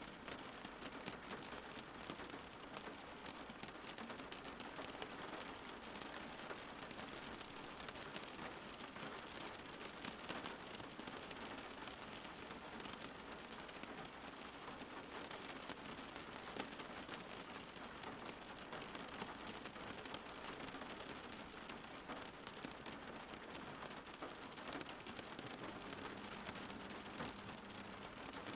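Steady soft rain falling, an even hiss of many fine drops pattering on a surface.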